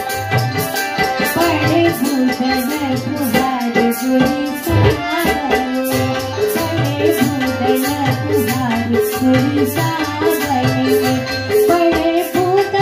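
Live Indian folk music in the Kajari style: singing and melody over hand-drum strokes, with a steady shaken or jingling percussion beat keeping time.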